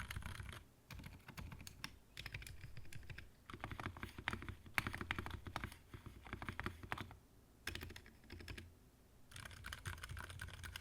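Typing on a Mode Envoy mechanical keyboard fitted with HMX Silent Sakura silent linear switches, whose rubber or silicone inserts in the stem rails dampen the bottom-out and top-out. The keystrokes come in runs of rapid clacks with short pauses between them.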